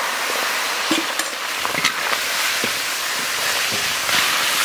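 Katla fish heads frying in hot oil in a large iron kadai: a steady sizzling hiss with scattered pops and crackles.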